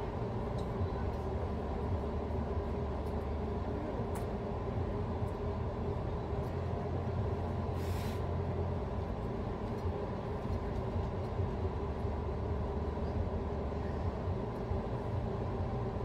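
Steady low rumble with a faint hum underneath, and a brief hiss about halfway through.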